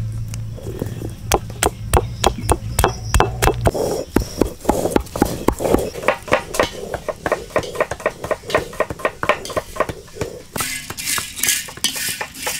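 Food-preparation sounds one after another. First a low rumble as a stone roller grinds turmeric on a flat grinding stone. Then a run of sharp clicks from small knives cutting, and from about ten seconds in, whole cinnamon and cardamom rattling in an iron wok as a ladle stirs them, under a steady hiss.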